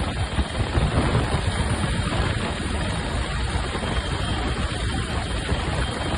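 Bell 412 helicopter running, a loud, steady rush of rotor and engine noise with a choppy low end.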